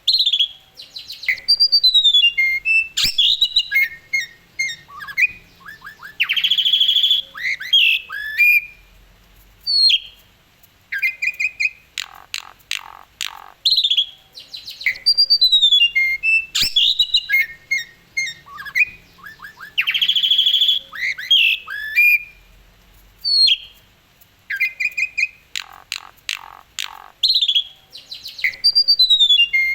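Asian pied starling (jalak suren) singing a loud, varied song of whistled rising and falling notes, chirps, quick stuttering runs of notes and harsh squawks. The same sequence of phrases comes round again about every 13 seconds, as in a looped recording.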